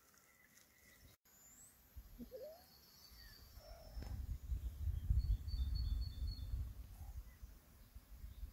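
Faint bird chirps outdoors, with an uneven low rumble that sets in about three seconds in and becomes the loudest sound.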